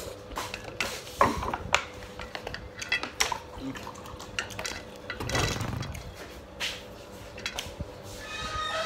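Wooden chopsticks clicking and scraping against a metal tray of fried noodles, in a series of sharp irregular knocks, with a short rush of noise about five seconds in and a brief pitched, falling call near the end.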